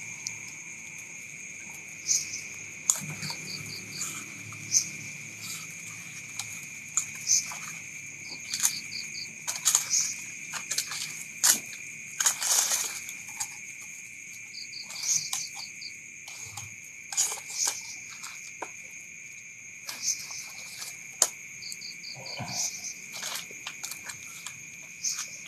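A steady high drone of night insects with short chirping trills now and then, over frequent sharp crackles and pops from a wood and bamboo campfire being poked and stoked.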